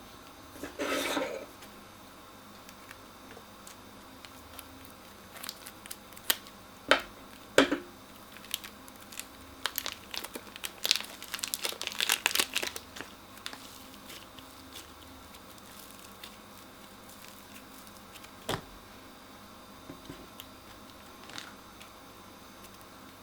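Crunchy slime being squeezed and worked, giving irregular crackles and crinkles, with a dense run of crackling in the middle and a single sharp click later on.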